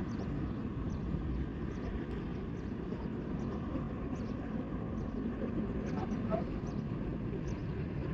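Steady low rumble of a jet airliner's engines at the airport, even and unbroken.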